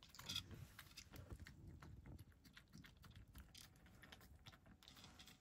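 Cat eating a treat from a shallow dish: faint, quick little clicks of chewing and licking.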